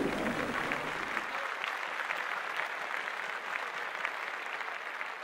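Audience clapping: a steady patter of many hands, easing off slightly toward the end.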